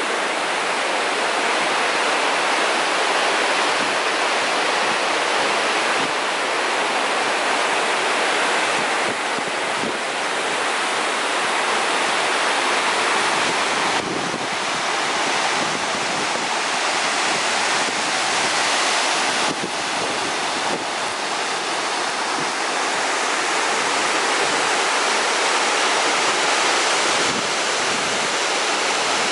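Whitewater creek cascading over rocks: a steady rush of water.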